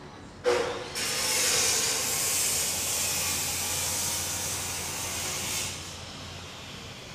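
A sudden loud hiss that starts about half a second in, holds steady for about five seconds, then fades away.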